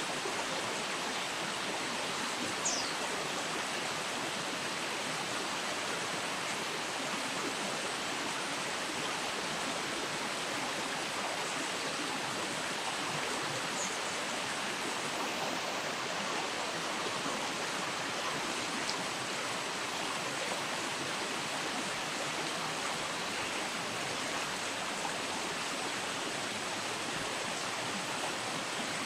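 Steady rushing of flowing river water, with a brief high bird call about three seconds in.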